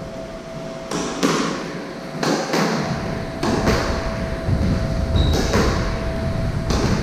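Squash rally: the ball is struck by rackets and hits the court walls in sharp, echoing cracks that come in quick pairs about every second and a half. A sneaker squeaks briefly on the wooden floor near the end.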